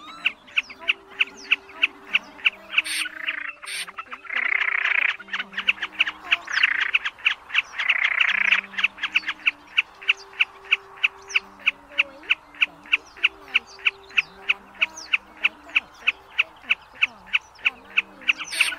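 Snipe calling in a steady, rhythmic run of sharp chipping notes, about three a second, with a few short bursts of hiss, as a lure call for night net trapping. Soft background music plays low held notes underneath.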